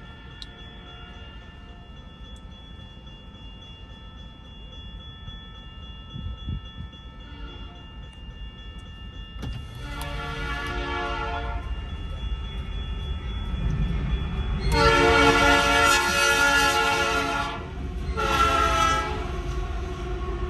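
Nathan Airchime P3 horn on a BNSF C44-9W locomotive sounding two long blasts and then a short one, the opening of the grade-crossing signal. The second long blast is the loudest. A low locomotive rumble builds underneath as the train approaches.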